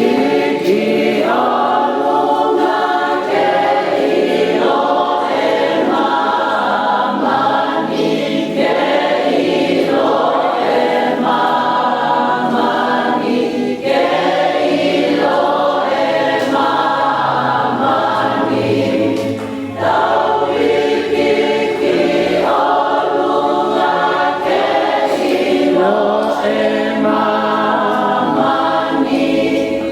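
Vocal group singing a gospel song in harmony, in phrases a few seconds long separated by brief breaks.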